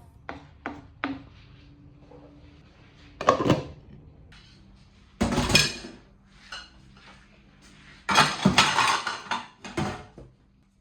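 Kitchenware handled in a kitchen: three light clinks in the first second, then several louder clattering, scraping bursts of pots, dishes and utensils.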